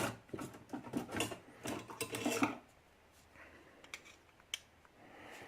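Small metal tools clattering and clicking against each other and the padlock for about two and a half seconds: a bigger Phillips screwdriver being taken up and set to a stuck screw. Then a few isolated light clicks.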